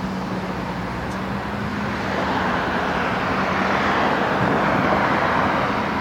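Street traffic: road noise from passing cars that swells about two seconds in, over a steady low engine hum.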